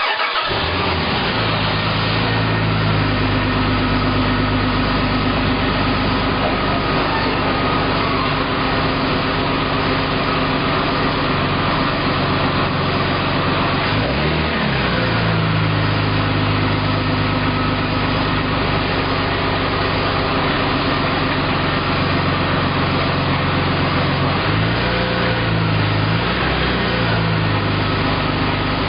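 The Plymouth Prowler's replacement 3.5-litre V6 engine starts on its first attempt right at the beginning and settles into a steady idle. The idle dips once and recovers midway, then rises briefly twice near the end.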